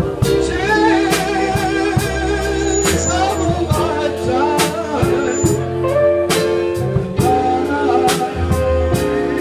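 A man singing through a microphone with a live band: electric guitar and keyboard under his voice, and drums keeping a steady beat.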